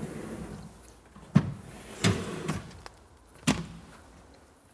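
Pull-out corner storage unit in a kitchen base cabinet being moved on its full-extension runners: a short sliding rumble, then four knocks as the unit and cabinet door come to their stops.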